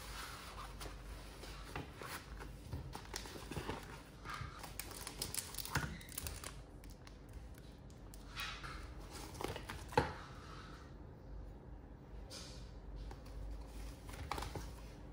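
Thin plastic packaging rustling and crinkling as clay-modelling tools are unwrapped and handled, with scattered light knocks and one sharper knock about ten seconds in.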